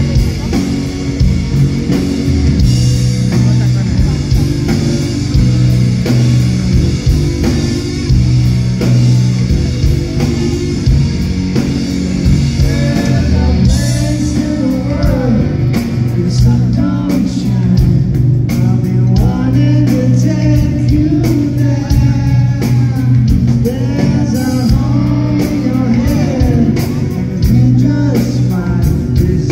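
Live rock band playing through a concert PA: electric guitars and drums, with singing coming in about halfway through.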